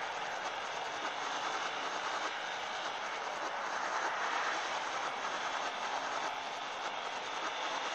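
Steady rushing noise of a moving vehicle, used as a car-chase sound effect, with no distinct engine note or impacts.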